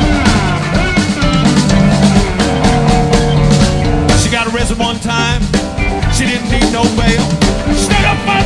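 Rock band playing live, the drum kit to the fore, with electric guitar, bass and keyboards.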